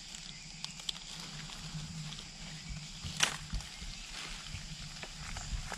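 Steady high-pitched insect drone from the forest, with dry leaf litter rustling and crackling and one sharper crunch about three seconds in.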